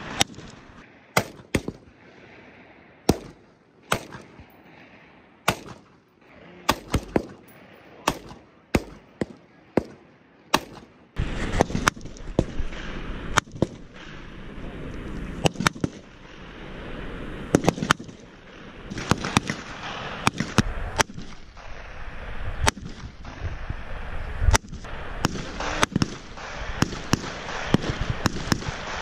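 Rifle fire on a firing range: single sharp shots at irregular intervals, some close and loud, others fainter. About eleven seconds in, a steady background noise rises under the shots.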